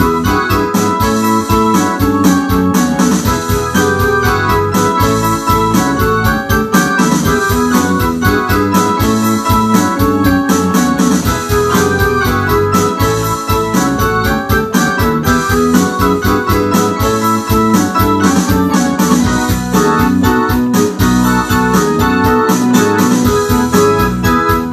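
Ensoniq SD-1 synthesizer keyboard played with both hands in an organ and electric-piano style: full, continuous chords and runs in a steady rock rhythm, with no pause.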